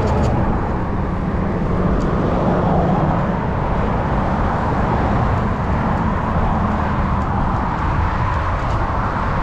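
Steady rushing noise of road traffic mixed with wind on the microphone while cycling.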